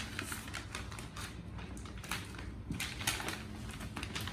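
A wrapped present being unwrapped by hand: irregular crackling and tearing of gift wrap with small clicks as the package is handled.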